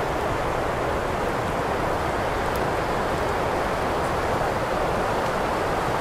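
Wind blowing steadily, an even rushing noise without gusts rising or falling.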